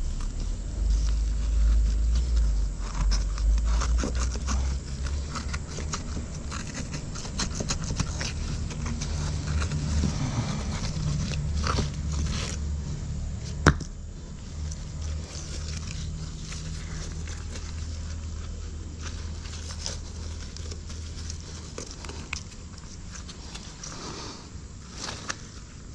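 Scraping and clattering of bricks and debris in a blocked drain being worked by hand, with a single sharp knock about fourteen seconds in, over a low rumble that dies away after about twenty seconds.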